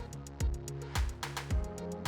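Background music with a steady beat: a deep kick drum just under twice a second, with crisp high hits and a held bass line.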